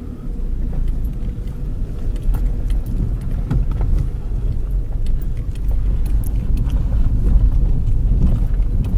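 Car driving slowly over a potholed farm track, heard from inside the cabin: a steady low rumble of tyres and engine with frequent small knocks and rattles as the car bounces.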